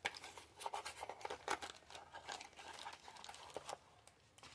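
Crinkling and rustling of a clear plastic booster bag being handled and opened, a quick run of irregular crackles that thins out near the end.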